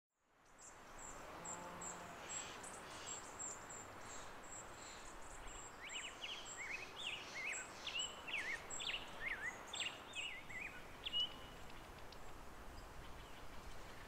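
Quiet natural ambience with birds: a thin, high chirp repeats about twice a second, and from about six to eleven seconds in a songbird sings a quick run of varied, rising and falling chirping notes over a faint hiss.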